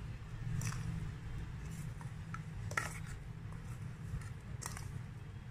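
Spice masala scraped from a steel bowl onto a steel plate of grapes with a spoon: a few light scrapes and clinks of metal on steel, spaced out, over a steady low hum.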